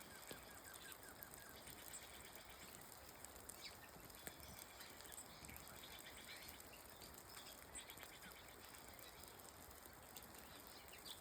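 Soft rain falling in a forest: a faint, steady hiss with scattered light ticks of drops. A bird gives a quick run of short chirps near the start.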